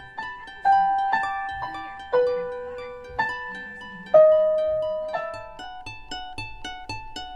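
Instrumental music on plucked strings. A slow melody of ringing notes, about one a second, plays over lighter picked notes, then gives way near the end to a steady run of quick picked notes.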